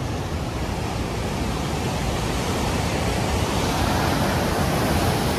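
Fast-flowing mountain river rushing steadily, a continuous hiss of water that grows slightly louder towards the end.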